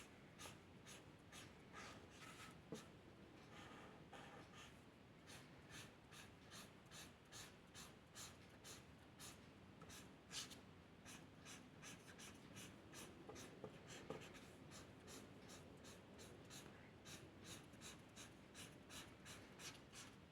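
Faint scratching of a drawing tool on paper, short strokes repeating about two or three times a second as a bird is drawn.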